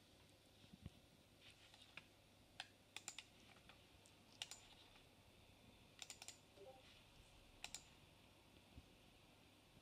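Faint, sharp clicks of a computer mouse's buttons, coming in small irregular groups of singles, quick pairs and a triplet, as the pointer is worked around the Amiga Workbench screen.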